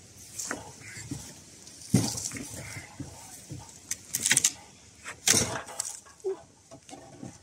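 A kitchen knife slicing through cooked rump steak on a wooden cutting board: irregular scrapes and knocks of the blade against the board, the loudest about two, four and five seconds in.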